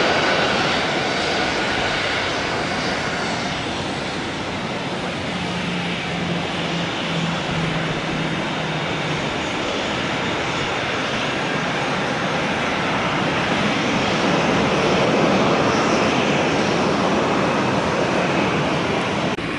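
Airbus A380's four jet engines at taxi power, a steady rushing whine with a faint low hum coming and going in the middle. The sound cuts off abruptly near the end.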